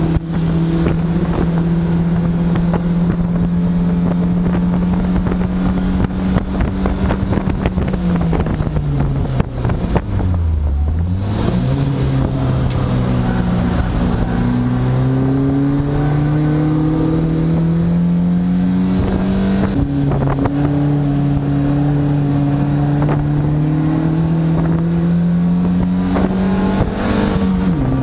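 Race car engine heard from inside the cabin, held at steady high revs, then dropping sharply about ten seconds in as the driver lifts and brakes for a corner. It then accelerates with the pitch climbing, broken by two sudden drops for upshifts, over road and wind noise.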